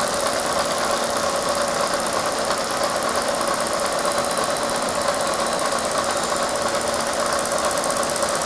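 Bridgeport vertical milling machine running, its spindle turning a face-milling cutter head through a steady cut across a thin plastic part held on a vacuum chuck. The sound is an even, unbroken machining noise with a faint fast patter from the spinning cutter.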